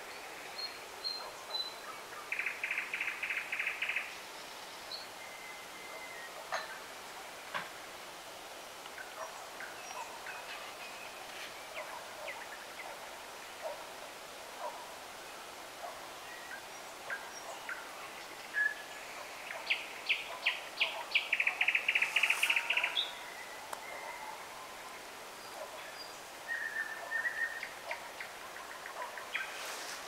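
Small songbirds singing in a garden: scattered short chirps and calls. Twice a bird gives a trill of evenly repeated notes, about a second and a half long, first a couple of seconds in and again, louder, about two-thirds of the way through.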